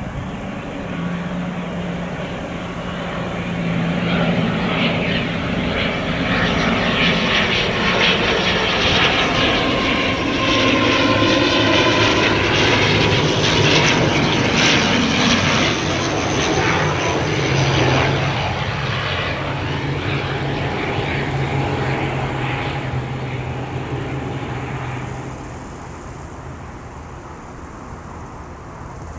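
ATR 72-500F twin-turboprop freighter, its Pratt & Whitney PW127 engines and propellers passing on arrival. A steady propeller hum swells to a peak midway, drops in pitch as the aircraft goes by, then fades near the end.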